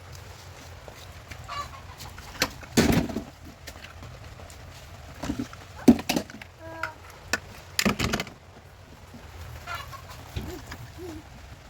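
Chickens clucking, with several loud thumps.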